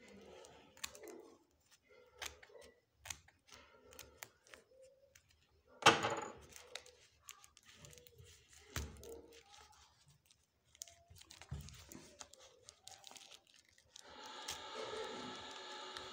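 Cardboard packaging being cut with scissors and torn open by hand: scattered snips, rustles and crinkles, with one loud rip about six seconds in. A steady hum comes in about two seconds before the end.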